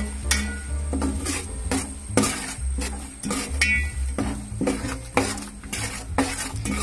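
A steel spoon scraping and knocking against the pan about twice a second, stirring garlic, ginger, green chillies and curry leaves frying in oil.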